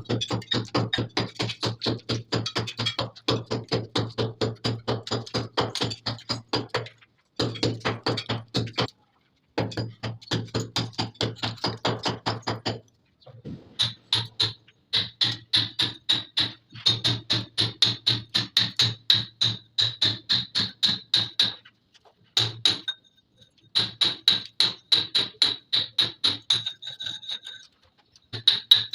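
Rapid, even tapping, about four to five strikes a second, cut off abruptly by several short dead silences.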